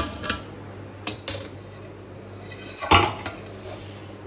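Metal ladle clinking and knocking against an aluminium cooking pot: several sharp clinks, the loudest about three seconds in.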